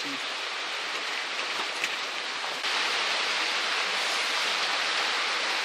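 Steady hiss of background noise with no clear pitch, stepping up louder about two and a half seconds in.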